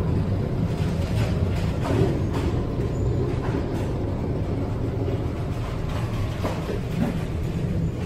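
Storm at sea on a ship's deck: a steady low rumble of wind and ship, with seawater crashing over the deck and spray striking repeatedly.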